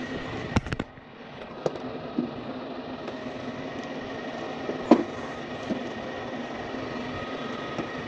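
Gas furnace running with a steady hum and whine. Sharp clicks and knocks of meters and the camera being handled come about half a second in, then singly near two and five seconds in.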